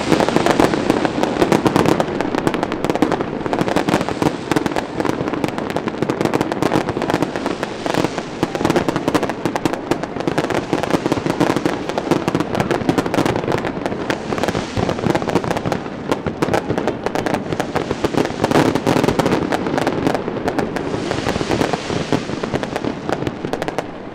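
Aerial fireworks going off in rapid succession: a dense, unbroken crackle of many sharp bangs.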